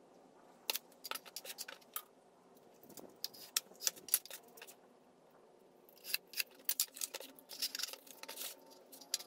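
Scissors cutting a cardboard template, a run of quick sharp snips in three bursts: about a second in, around three to four seconds in, and again from six seconds on.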